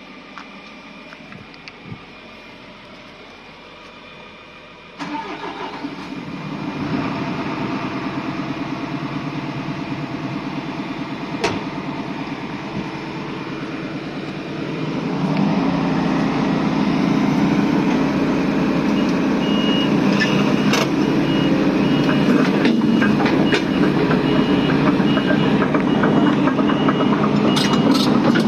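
Volvo excavator's diesel engine starting about five seconds in and settling into a steady run, then getting louder and heavier about fifteen seconds in as the machine is worked. Scattered clicks and rattles come in near the end.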